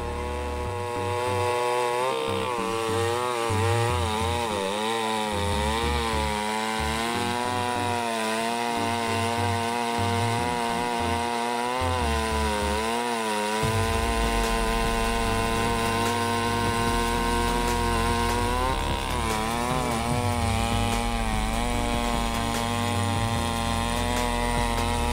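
Chainsaw running under load while cutting through a log. Its engine pitch repeatedly dips and recovers as the chain bites into the wood.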